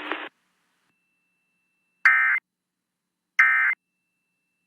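Emergency Alert System end-of-message signal: short, identical buzzy bursts of digital data tones about a second and a half apart, two in full and a third starting right at the end. This marks the close of the broadcast warning.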